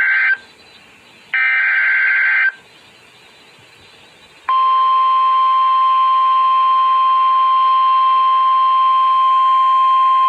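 Emergency Alert System SAME header: the first burst of buzzy digital data tones ends just after the start, and a second one-second burst follows a second later. After about two seconds of quiet, the steady NOAA Weather Radio 1050 Hz attention tone starts about four and a half seconds in, announcing a flash flood warning.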